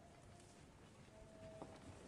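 Near silence, with a faint thin tone lasting about half a second a little past the middle.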